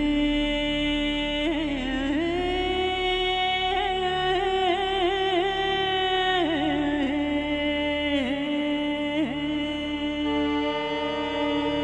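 Background music: a solo voice singing slow, long held notes that waver and glide from one pitch to the next, over a steady low drone. A second held note joins near the end.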